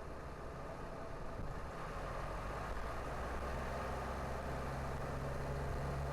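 Car driving on an expressway: steady engine and road noise, with a low engine drone that grows a little louder about two seconds in.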